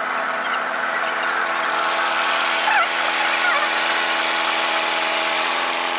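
Tractor engine running steadily as it tows a boat on its trailer through shallow seawater.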